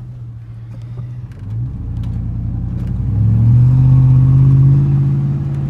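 2002 Chevrolet Silverado pickup's engine pulling as the truck accelerates in a straight line. Its note steps up in pitch about a second and a half in and again near the middle, growing louder. There is no turning noise from the drivetrain, which runs smooth going straight.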